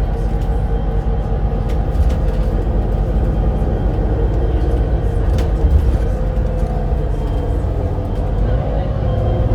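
Volvo B7RLE bus with a ZF Ecolife automatic gearbox driving, a steady low rumble with a held whine over it that shifts slightly in pitch near the end.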